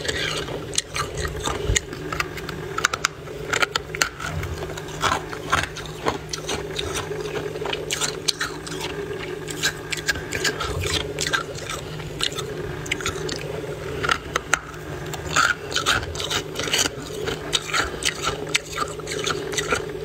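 Thick freezer frost being pressed and crunched, a steady run of squeaky, crackling crunches, over a steady low hum.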